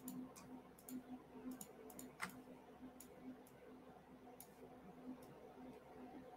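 Faint, irregularly spaced clicks of a computer mouse, about a dozen, over a faint steady low hum.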